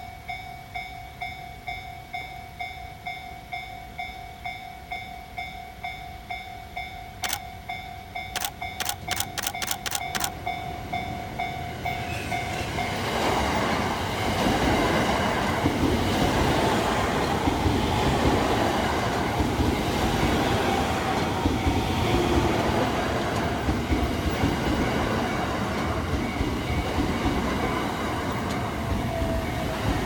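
Level-crossing bell ringing in a steady, even rhythm, with a brief run of sharp clicks partway through. A little under halfway in, a JR West 683 series electric express train arrives and passes close by: its wheels clatter over the rails and its running noise grows loud, drowning out the bell.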